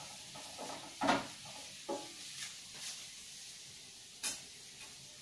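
Metal spatula scraping and knocking against a wok of thinly sliced shallots frying in oil, with a steady sizzle underneath as they are fried until crisp. A single sharp clack comes about four seconds in.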